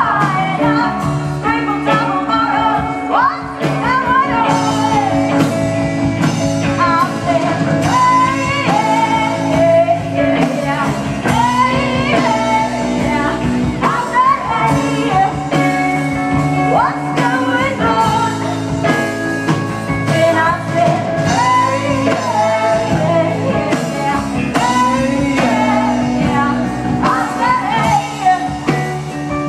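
Live rock band playing, with electric guitars, bass, drums and keyboard under a woman singing lead.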